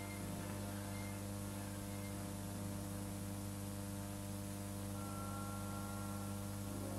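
Steady electrical mains hum with hiss on an old film soundtrack. A faint high held tone comes in about five seconds in.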